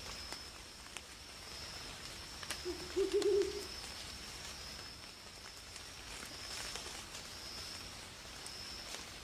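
A single brief, low, quivering animal call about three seconds in, over a thin high-pitched steady tone that fades in and out throughout, the kind of night sound heard at a forest camp.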